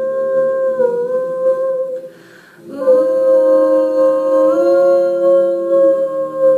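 Two female voices singing wordless held notes in harmony, a cappella, with small steps in pitch. There is a short break for a breath about two seconds in, then the held notes resume.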